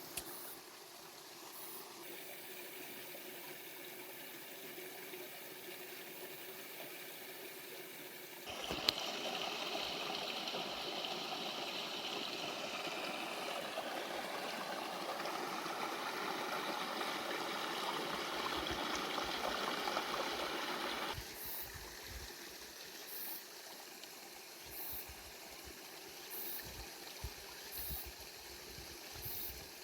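Running, trickling water, a steady wash that turns louder for about twelve seconds, starting with a sharp click and cutting back suddenly.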